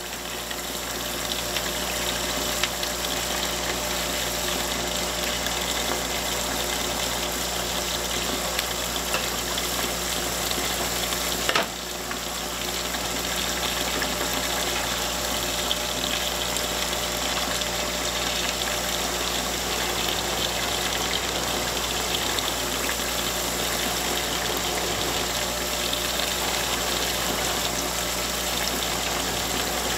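Tap water running steadily into a stainless steel sink and splashing over a plucked duck being rinsed by gloved hands, over a steady machinery hum.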